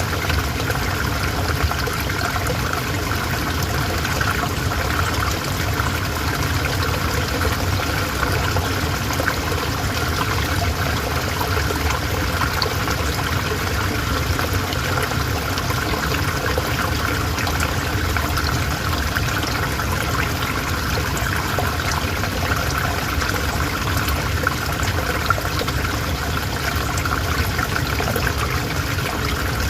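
River water flowing steadily, a continuous even rush with fine trickling and splashing.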